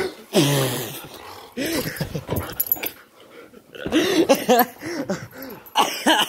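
A young husky growling and whining during rough play, in several bursts of vocal noise whose pitch wavers up and down.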